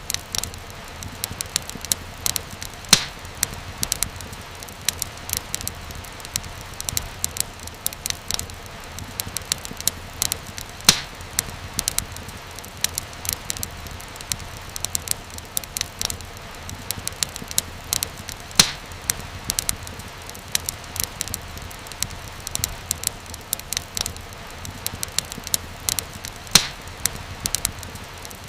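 Wood fire crackling steadily, with frequent small snaps and a few louder pops over a low, steady rumble.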